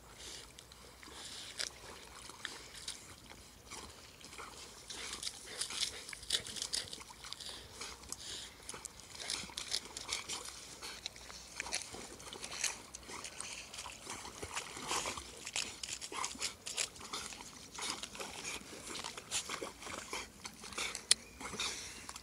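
Water sloshing and splashing in quick, irregular splashes as several dogs paddle through a lake, with the splashing busier after the first few seconds.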